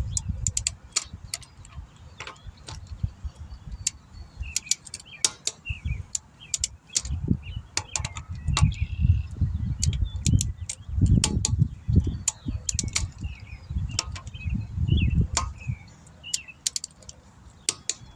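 A click-type torque wrench ratcheting and clicking as a car's lug nuts are torqued down in turn: many sharp clicks all through, with bursts of low rumble. Birds chirp faintly.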